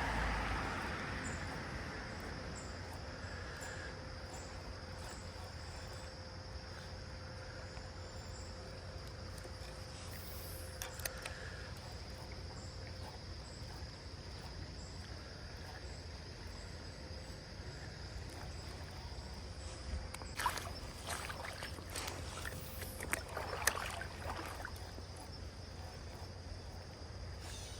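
Creek water running steadily with a thin, steady insect drone, and scattered sharp clicks and rattles, clustered about ten seconds in and again in the last third.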